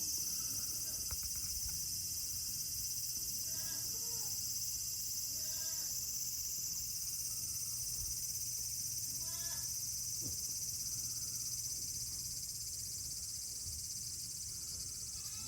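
Goat kids bleating, about four short calls several seconds apart, over a steady high-pitched drone of summer insects.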